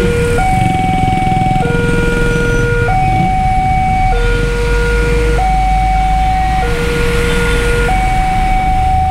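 Railway level-crossing warning alarm sounding: an electronic two-tone signal alternating between a higher and a lower tone, each held about a second and a quarter, warning that a train is approaching. Road traffic engines rumble underneath, heavier from about four seconds in.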